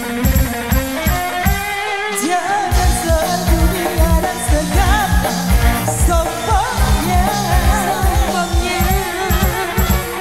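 Live dangdut band with a female lead singer, played loud through the PA: a steady drum and bass beat with keyboard. The drums briefly break about two seconds in, then the voice comes in singing ornamented, wavering lines.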